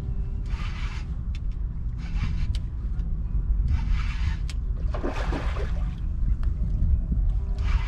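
Wind rumbling on the microphone, with short raspy bursts every couple of seconds as a spinning reel is cranked against a fish on a bent rod, and a few light clicks between them.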